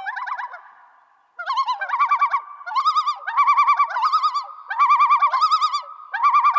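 Warbling, trilled bird-like calls: one fades out at the start, and after a short pause they come in groups about once a second, a comic sound effect laid under a meme montage.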